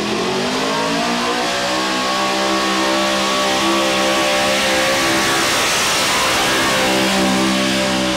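Square-body Chevy pulling truck's engine running flat out under load as it drags a weight-transfer sled down a dirt pulling track. The revs climb in the first second, then hold high and steady.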